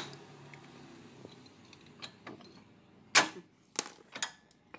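Sharp metallic clicks and knocks from a tool and hands working on a Renault Duster's front brake caliper while its pistons are pushed back. One sharp click at the start, then three knocks about half a second apart near the end, the first the loudest.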